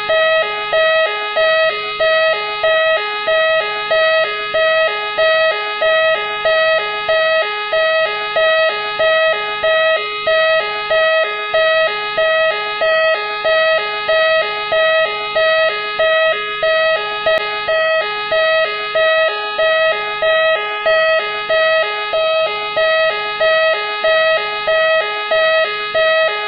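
Machine X police car's siren sounding continuously: a loud tone pattern pulsing about once a second.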